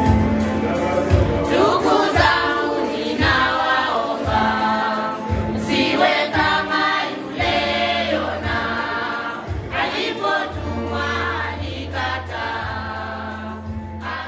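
Choir singing gospel music over a bass line and a steady beat, slowly fading toward the end.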